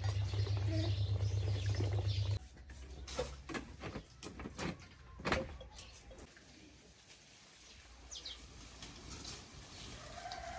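Electric yogurt churn's motor running with a steady hum, then switched off about two seconds in, followed by a string of clicks and knocks as the metal churn is handled.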